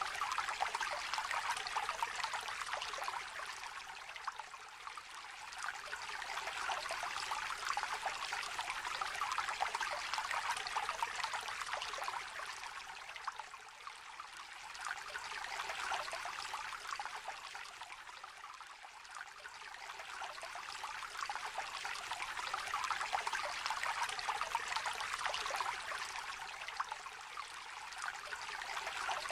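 Shallow stream trickling and babbling over stones, a continuous bright patter of running water that swells and eases every few seconds.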